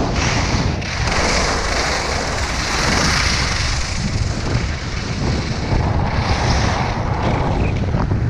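Wind buffeting a body-worn camera's microphone during a fast snowkite run, a steady rushing noise with a constant high hiss from the ride over the snow.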